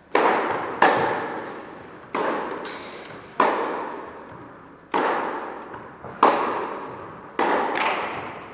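A tennis rally: the ball cracks off the rackets about every second and a half, eight sharp hits in all, each ringing on in the echo of an indoor hall.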